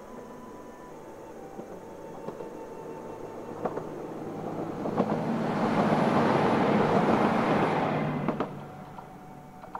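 A diesel limited-express train passing: its running noise grows to a peak about six to seven seconds in and then fades, with a few sharp clicks of the wheels over rail joints.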